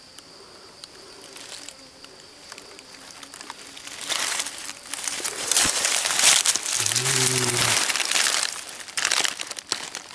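Dry leaf litter and undergrowth crunching and rustling loudly as someone pushes through to a shot squirrel, starting about four seconds in, with a brief low grunt-like voice near the middle. Before that, only a faint steady high-pitched tone.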